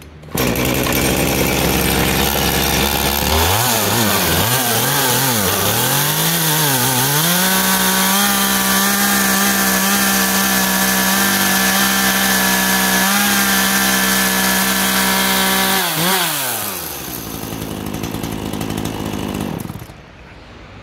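Makita MEA3600L two-stroke chainsaw engine catching and idling, then revved in several quick blips before being held at full throttle for about eight seconds. It falls back to idle and is switched off near the end.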